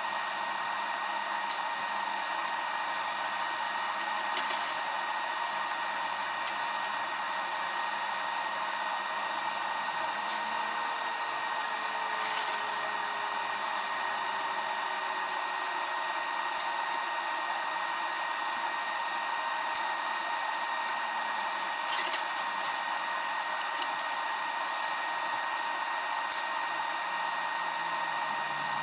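Steady hum of a workshop fan, an even whir with a faint high tone, broken only by a few faint clicks.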